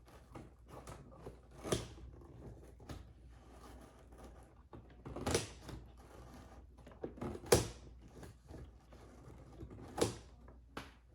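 Scissors cutting through tape and cardboard packaging while the box is handled: scattered small clicks and snips, with four louder knocks spread through.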